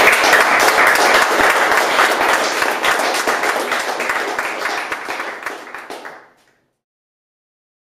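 Audience applauding, a dense patter of many hands clapping that thins out and dies away about six seconds in.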